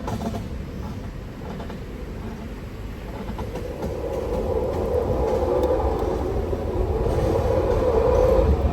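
E-Z-GO RXV Elite electric golf cart driving along, with wind buffeting the microphone and road rumble. The noise grows louder from about three and a half seconds in as the cart picks up speed.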